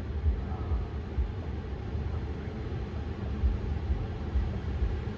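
Cabin air-conditioning fan of a parked BMW i4 blowing, turned up: a steady low rumble with a faint airy hiss.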